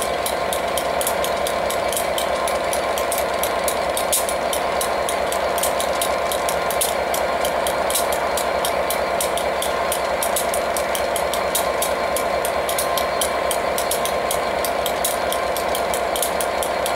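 Class 67 diesel locomotive's EMD two-stroke V12 engine idling steadily at a standstill, with a fast, even clatter.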